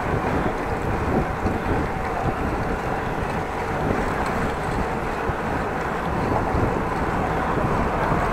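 Steady wind rushing over the microphone of a camera carried on a moving bicycle.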